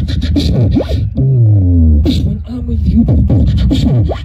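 Beatboxer performing into a microphone: sharp snare-like clicks and hissing hi-hats over a deep bass, with one long falling bass note about a second in.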